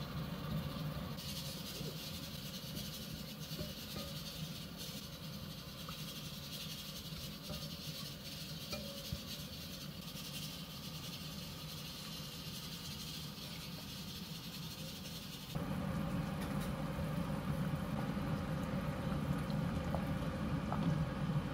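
Beef and seaweed sizzling with a steady hiss as they are stir-fried in a stainless steel pot. About fifteen seconds in, this changes to a louder, lower rumble of the seaweed soup boiling.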